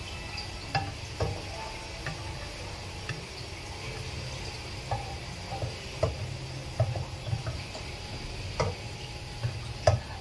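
Chopped garlic frying in oil in a nonstick pan, being stirred and scraped with a spatula toward deep crispy: a steady sizzle under irregular taps and scrapes of the spatula on the pan, the loudest near the end.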